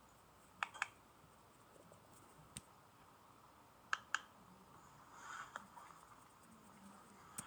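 Faint room tone broken by a few light, sharp clicks: two quick double clicks and two single clicks.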